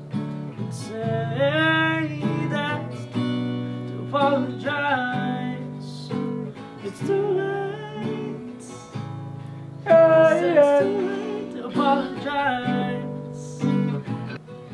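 Acoustic guitar played with a man's voice singing along, the notes and sung lines going on throughout.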